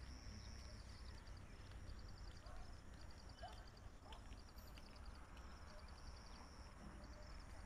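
Near-silent open-air ambience: a faint low wind rumble on the microphone, with a faint, high chirping of insects in evenly pulsed trains and a few faint short calls.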